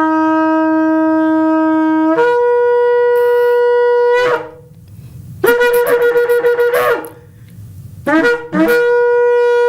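Shofar blown in a series of calls. The first long blast starts on a low note and steps up to a higher one about two seconds in. After a pause comes a shorter, wavering call, then two quick short blasts and a long steady note.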